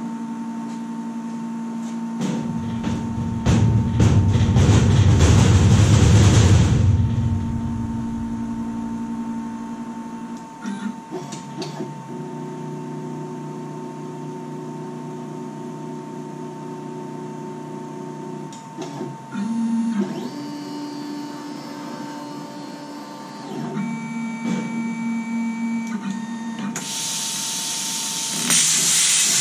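Stepper motors of a homebuilt CNC plasma table whining at steady pitches that step up and down as the gantry runs its homing cycle. A few seconds in, a louder rushing noise swells for about four seconds and fades, and near the end a loud steady hiss starts as the torch comes down to find the top of the sheet metal.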